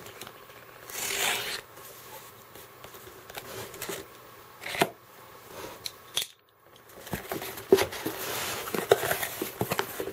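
Packing tape on a cardboard box being slit with a box cutter and torn, then cardboard flaps pulled open with rustling, scraping and a few sharp knocks.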